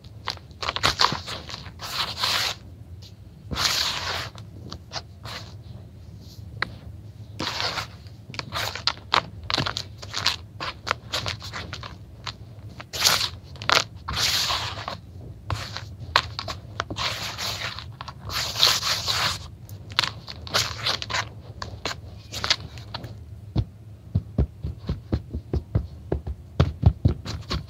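Hands raking and rubbing through a basin of dry, crumbled grey grit and powder, giving irregular gritty crunching and scraping strokes. Near the end come quicker, lighter taps as the hands pat and press the surface.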